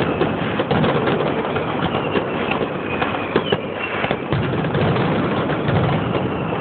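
Aerial fireworks shells bursting in a dense, continuous run of bangs and crackles with no pause, with a faint whistle about three seconds in.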